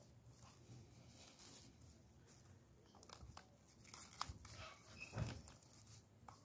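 Faint crinkling and rustling of cling film as gloved hands press and smooth it over a plastic blister pack, with small scattered crackles, the loudest about five seconds in.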